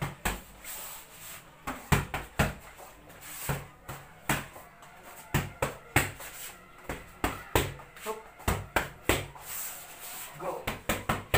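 Boxing gloves smacking focus mitts: sharp slaps that come in quick combinations of a few punches, with short pauses between.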